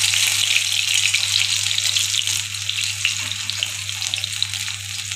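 Batter-coated paneer pakoras deep-frying in hot oil in an iron kadhai: a steady crackling sizzle, with a steady low hum underneath.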